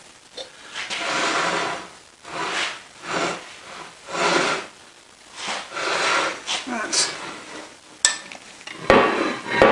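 Metal lathe tailstock parts being handled and slid on a bench: a run of rough scraping, rubbing strokes about one a second, then a sharp clack about eight seconds in and a louder scrape just before the end.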